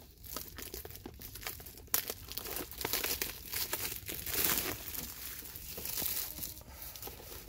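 Clear plastic wrap crinkling and crackling as it is pulled off a plastic socket-set case, with a sharp crackle about two seconds in.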